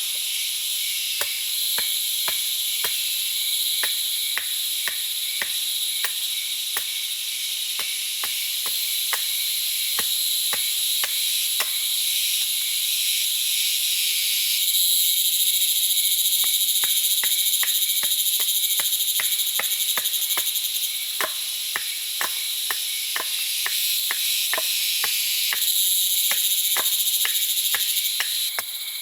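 A chorus of insects, crickets or cicadas, making a steady, shrill, high-pitched drone that swells louder about halfway through. Over it comes a regular series of sharp ticks, about one and a half a second, which pause for a few seconds in the middle.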